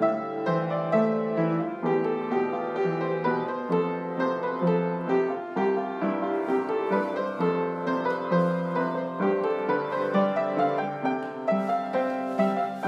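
Background piano music, one note or chord after another at an even level.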